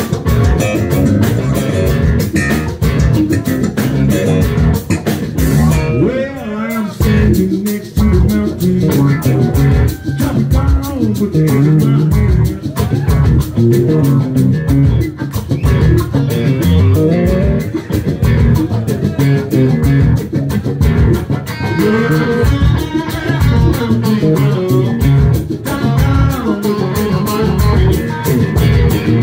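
Live blues-rock band playing loud and without pause: electric guitar over bass guitar and drums.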